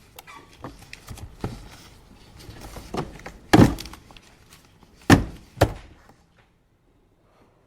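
Objects being handled on an office desk: small irregular knocks and rustling, then three heavy thuds about three and a half and five seconds in, after which it goes quiet.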